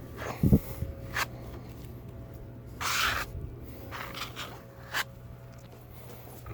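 Short scrapes, knocks and clicks of hand work on the fiberglass rudder, with one longer scrape about three seconds in, as a coat of filler is worked on. A steady low hum runs underneath.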